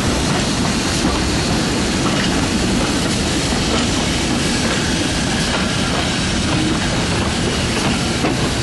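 A train running on jointed track: a steady rumble with an occasional click of wheels over the rail joints.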